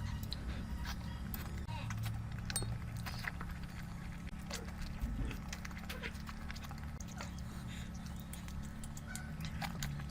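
Close-miked eating sounds: wet chewing and lip-smacking, a rapid irregular patter of small clicks, over a steady low hum.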